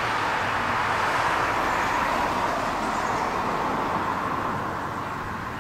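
A car driving past on the street: an even rush of tyre and road noise that peaks about a second in and then slowly fades.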